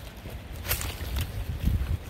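A dog scuffling and rustling through ivy and dirt at the mouth of a den, with two short sharp scuffs in the first half. A low rumble on the microphone runs underneath and swells near the end.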